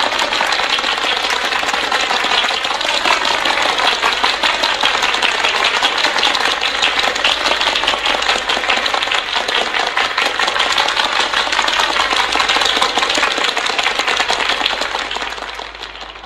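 A loud, fast, continuous rattle of rapid strokes that fades out near the end.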